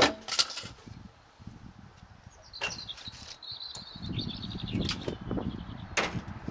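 A sharp knock at the start, then a small bird chirping a quick run of high notes. About six seconds in, a steel door bangs shut.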